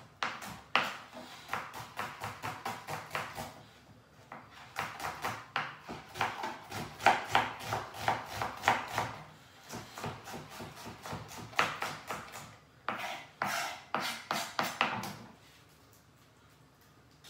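Kitchen knife dicing a red onion on a white cutting board: rapid knife strokes on the board in quick runs with short pauses, stopping about two seconds before the end.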